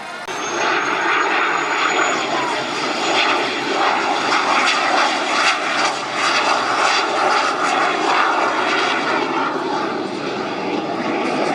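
Fixed-wing aircraft engine noise from a low display pass: a loud, steady rushing that cuts in abruptly at the start, easing slightly about six seconds in.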